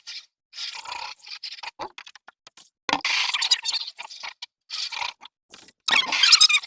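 Scrubbing and scraping strokes inside a water bucket as it is cleaned out, coming in irregular spurts with short pauses; the longest strokes come about three seconds in and near the end.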